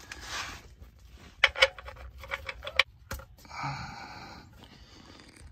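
Sharp metallic clicks and taps in two short clusters as the drain plug is handled and threaded back into the oil pan by hand, followed by a brief rustle.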